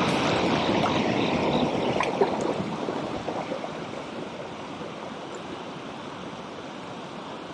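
Small mountain stream flowing over rocks, a steady rush of water that slowly fades.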